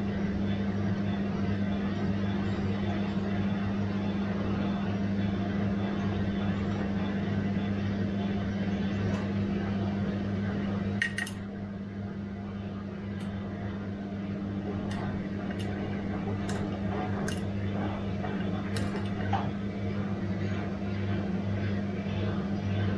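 Bosch washing machine running with a steady hum. About halfway through a sharp click comes and the sound drops a little, followed by a scatter of light clicks over the next several seconds.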